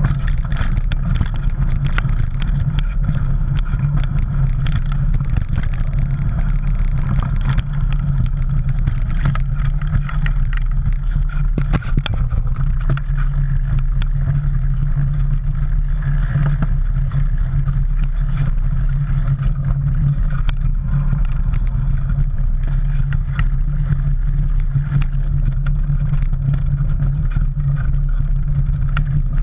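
Mountain bike riding noise picked up by a camera on the bike: a steady, loud low rumble of wind on the microphone and tyres rolling over dirt and dry leaves, with frequent sharp clicks and rattles from the bike over the bumps.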